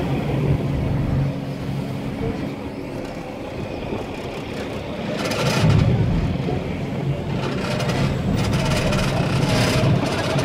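Tour boat's engine running as the boat pulls away from the pier, a steady low hum that swells louder with a noisy rush a little past halfway through.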